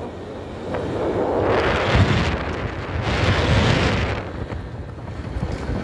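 Wind buffeting the microphone on a moving 150 cc motorcycle, swelling loudly twice in gusts, over the low rumble of the ride.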